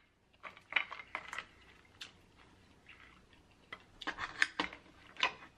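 Cooked snow crab leg shells clicking and crackling as the clusters are handled and lifted off the plate: a scattering of light clicks, thickest about four seconds in.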